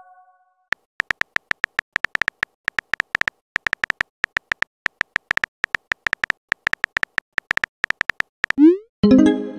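Texting-app keyboard sound effects: a rapid, uneven run of short tinny typing ticks, several a second, as a message is typed out. Near the end a quick rising swoosh and a chime play as the message is sent.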